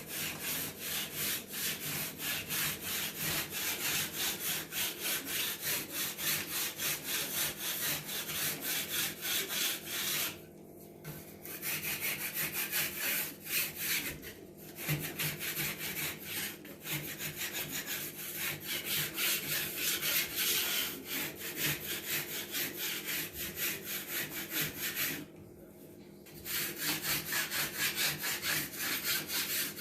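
A hand tool worked rapidly back and forth against a hard surface, rubbing and scraping at several strokes a second, with three short pauses.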